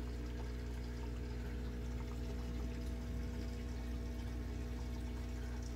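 Aquarium equipment running steadily: a low motor hum with a few steady tones, under water pouring and bubbling from the air stone.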